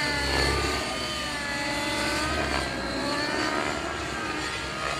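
Radio-controlled helicopter in flight: the steady whine of its motor and rotor blades, with the pitch dipping and climbing again as the rotor speed changes during manoeuvres.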